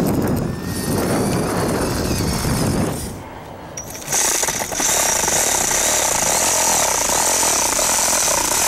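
Electric reciprocating saw cutting a round opening through the roof deck for a solar attic fan. It saws for about three seconds, pauses briefly, then runs again louder and steadier with a high whine from about four seconds in.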